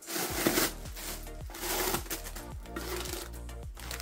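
Plastic bag and wrapping rustling and rubbing as hands pull a bagged chin strap out of the helmet. Quiet background music comes in under it shortly after the start.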